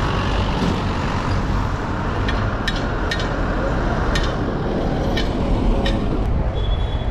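Street traffic: a steady rumble of vehicle engines, with a minibus passing close near the end. A few sharp clicks sound in the middle, and a brief high squeal near the end.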